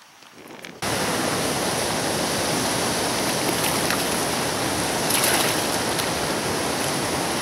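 Steady rushing of flowing river water, starting abruptly about a second in, with a small splash about halfway through as a released black bass drops into the water.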